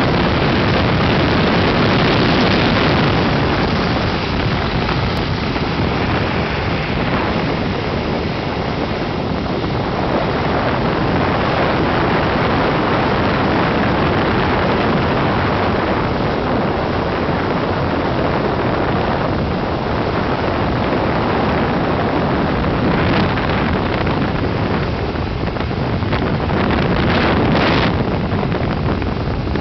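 Steady rushing roar of a hot boiler pass heard at an open inspection port while a shower-cleaning water lance sprays into it, with a few brief louder hisses near the end.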